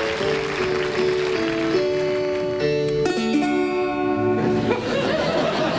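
Plucked-string instrumental music playing a simple melody, with audience applause dying away in the first couple of seconds.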